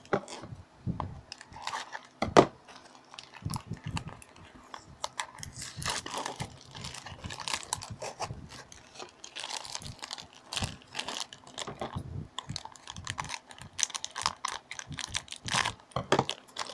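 A cardboard toy box being opened and the plastic bag inside handled: scattered crinkling, rustling and small clicks, with one sharp knock about two seconds in.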